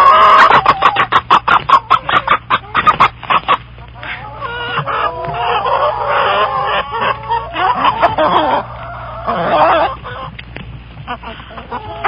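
Chickens clucking in a rapid run of short clucks, then giving longer, wavering squawking calls.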